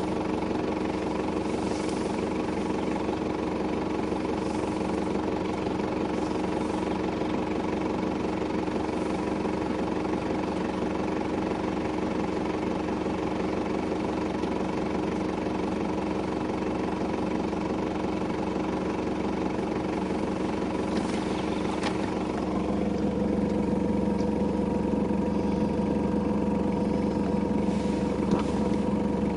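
An engine idling steadily, its note shifting and growing slightly louder about three-quarters of the way through.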